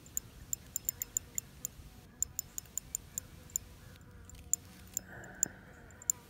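Spinning reel giving sharp, irregular clicks, several a second, as a hooked fish is fought on a light rod.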